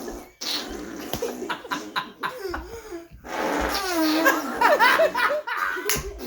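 Several children laughing hard in two bouts with a brief break about three seconds in; the second bout is louder, with high squealing giggles.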